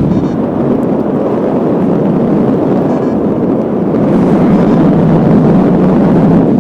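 Strong wind buffeting the microphone: a loud, steady, low rushing noise.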